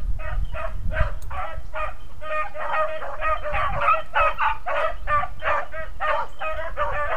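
Beagles baying in quick repeated barks. More voices join and overlap after a couple of seconds, as hounds giving tongue on a trail.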